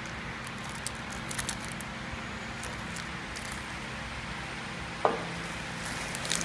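A biscuit packaging machine running with a steady hum, while the clear plastic wrappers of sealed biscuit packets crinkle as they are handled. A single sharp knock comes about five seconds in.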